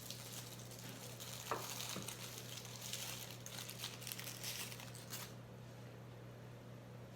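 Packaging crinkling and rustling as statue parts are handled and unwrapped, stopping about five seconds in, with one sharper knock or squeak about a second and a half in. A steady low hum sits underneath.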